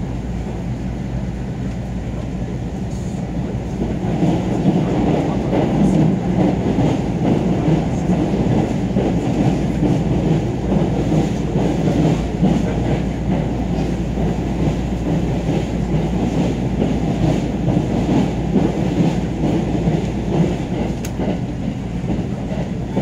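Passenger train running at speed, heard from inside the carriage: a steady rumble of wheels on rail that gets louder about four seconds in, with occasional faint clicks.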